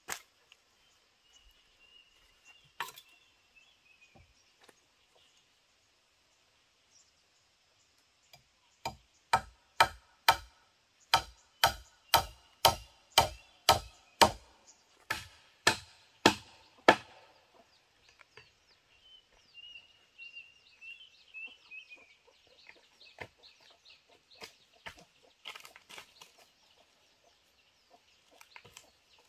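A run of about fifteen sharp strikes, roughly two a second, as a hand tool hits bamboo. A bird calls faintly before and after.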